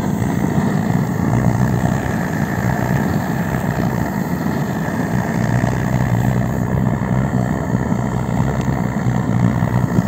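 A blowtorch burning steadily, singeing the down off a plucked duck.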